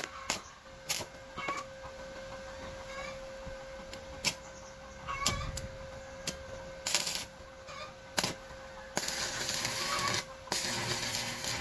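Several sharp metallic taps and clicks, then from about nine seconds in a steady crackling hiss typical of a stick-welding arc burning on the steel bar, briefly breaking off once. A steady hum runs underneath.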